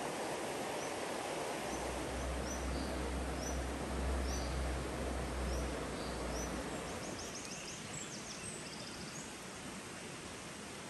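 Shallow river flowing over stones, a steady rush of water, with a small bird chirping repeatedly and a quick high trill about seven to nine seconds in. A low hum sits underneath from about two to six and a half seconds in.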